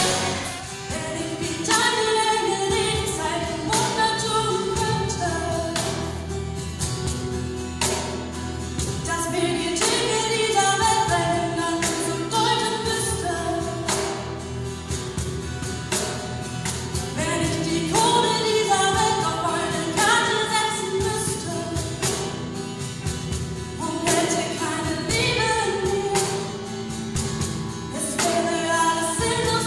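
Live band performing a pop-style song: female vocals singing the melody over acoustic guitar, with a cajón keeping a steady beat.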